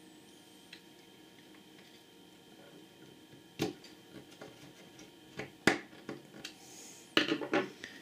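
Screwdriver and screws clicking and tapping against the metal chassis of a Netgear network switch as the power supply's screws are refitted: quiet at first, then a few sharp single clicks from about three and a half seconds in and a quick run of clicks near the end.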